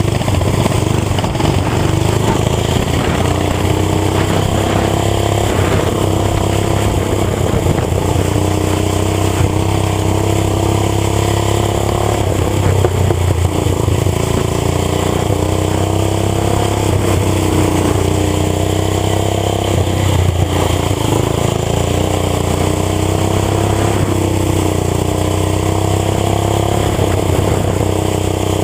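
Racing lawn tractor's small gasoline engine running hard, its pitch climbing on the straights and dropping back briefly several times as it slows for the corners, then revving up again.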